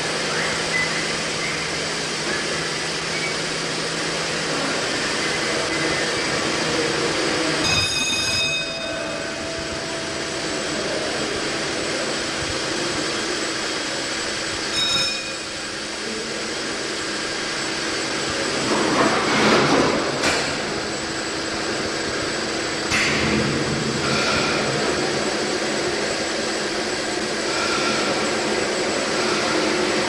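Hesketh steam winding engine, a 500 horsepower twin-cylinder winder built by Worsley Mesnes of Wigan, running with a steady rushing noise. Two brief ringing strikes come about 8 and 15 seconds in, and a louder hissing surge about 19 seconds in.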